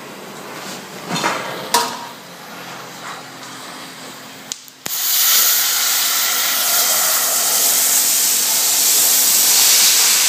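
Oxy-acetylene cutting torch hissing, with a few sharp knocks in the first two seconds. About five seconds in the sound breaks off for a moment, then comes back as a much louder, steady hiss.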